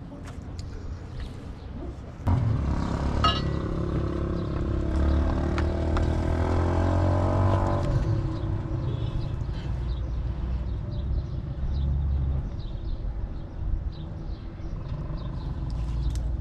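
Motor vehicle engine running, starting loud suddenly about two seconds in and easing off after about six seconds, over a steady low rumble.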